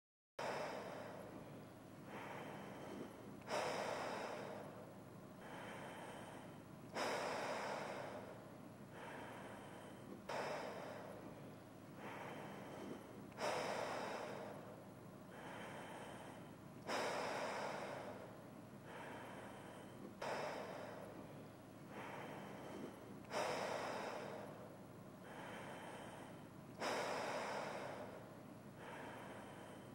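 A person breathing slowly and evenly through a half-face respirator with twin filter cartridges. There is a louder breath about every three and a half seconds, each followed by a softer one, in a steady rhythm.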